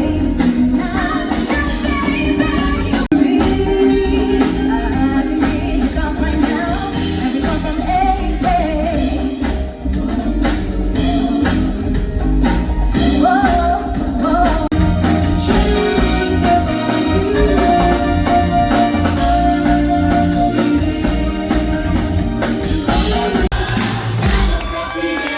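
Stage show singers performing over a pop-style accompaniment with a steady drum beat.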